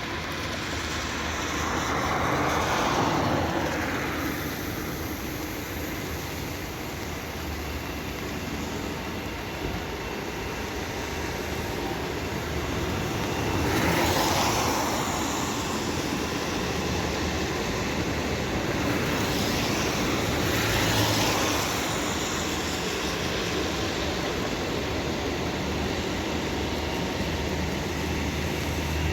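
Steady outdoor vehicle noise, with a vehicle swelling past three times: shortly after the start, about halfway through, and again about two-thirds of the way in.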